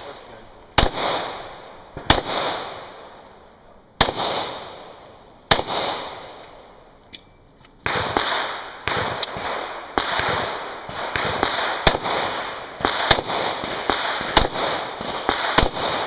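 Semi-automatic pistol shots with echoing tails. A few shots come a second or two apart, then there is a pause of about two seconds with a faint click during a slide-lock reload, then a quicker string of shots.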